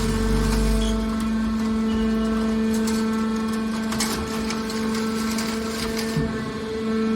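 Hydraulic scrap car baler running: a steady hum from its power unit, with a deep rumble that drops away about a second in and scattered short knocks.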